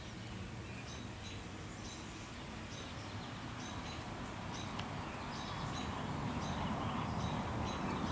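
A bird calling with short, high chirps repeated about every half second, over a steady outdoor hiss that grows louder near the end.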